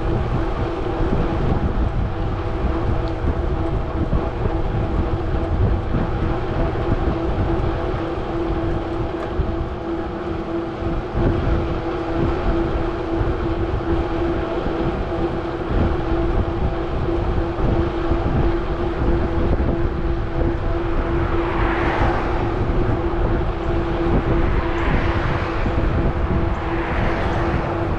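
Wind and road noise on a bicycle-mounted camera while riding, with a steady hum throughout and a low rumble. From about 21 s on, several cars pass in the oncoming lane, each a swelling whoosh.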